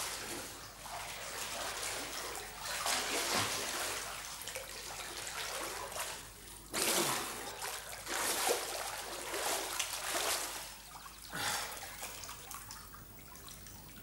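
Pool water splashing and sloshing as a person swims and moves about in it, with several louder surges of splashing.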